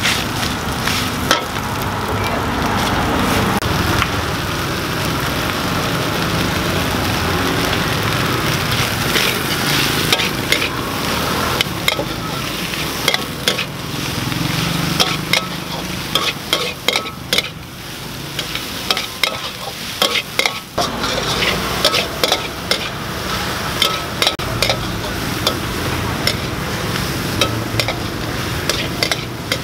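A stir-fry sizzling in a hot wok while a metal spatula stirs and scrapes it, with frequent sharp clicks of metal on metal over a steady frying hiss.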